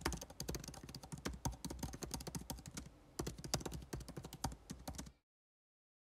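Typing sound effect: rapid, irregular keystroke clicks, with a brief pause about three seconds in, stopping about five seconds in.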